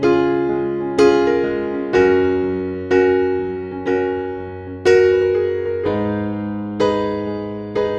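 Background music: a soft electric piano playing slow chords, a new chord struck about once a second and left to fade.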